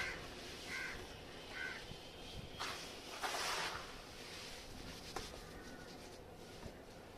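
Dry red sand-floor chunks crumbling with a crunchy burst a little past the middle, plus a few small crumbling clicks. Two short bird calls sound about a second in.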